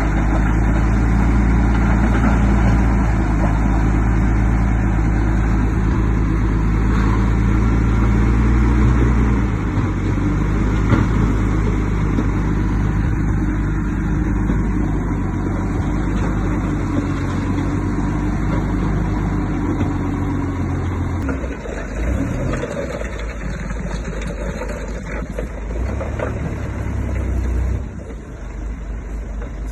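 Heavy diesel engine of earthmoving machinery running under load. Its tone holds steady, shifts about ten seconds in, and turns lower and more uneven after about twenty seconds.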